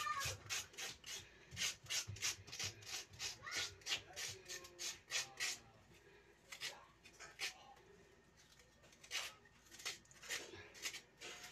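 Taro being grated by hand in a metal bowl: quick rasping strokes, about three or four a second. The strokes pause for a couple of seconds past the middle, then start again.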